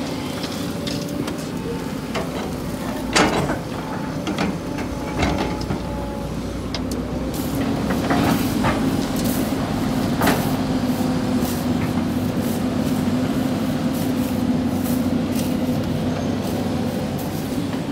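Sany hydraulic excavator's diesel engine running steadily under working load as it swings and digs sand, with a few sharp knocks, the loudest about three seconds in.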